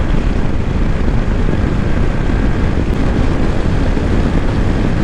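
A Honda ADV160 scooter's single-cylinder engine droning steadily under wind rush on the microphone while cruising at about 87 km/h.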